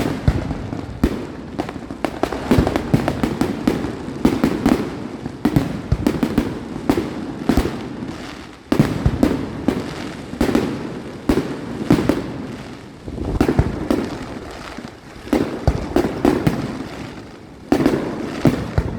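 Aerial fireworks exploding in rapid succession: a continuous series of bangs and crackles, with fresh loud volleys about a second in, near the middle, and near the end.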